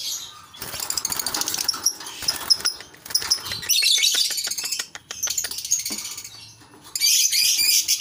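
Lovebirds chattering in shrill, raspy bursts of rapid chirps, with wings fluttering inside the cage as a hand reaches in towards the nest box.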